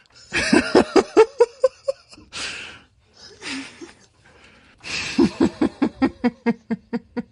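A person laughing in two bouts of quick, rhythmic ha-ha pulses, about five a second, with a breathy gasp between the bouts.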